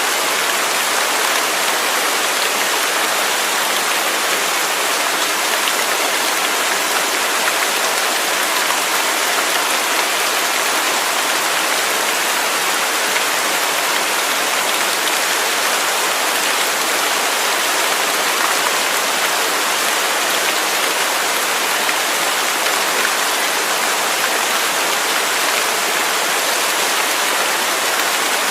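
Waterfall: a steady, even rush of falling water, bright and hissy with little deep rumble, unchanging throughout.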